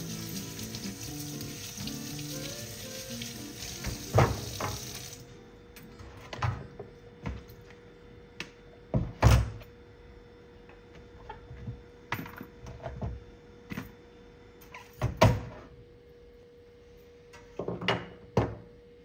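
Kitchen tap water running over potatoes being scrubbed in the sink, cut off about five seconds in. After it come scattered knocks and clunks of a plastic colander bowl and utensils handled in a stainless steel sink, with quiet background music throughout.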